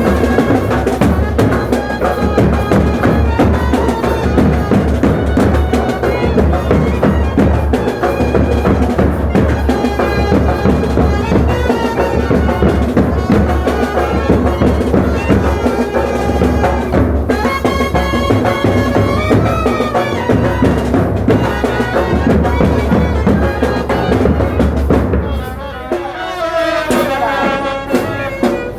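Dasara festival band music: dense, loud drumming under a wind-instrument melody. Near the end the drums drop out briefly and the melody carries on alone.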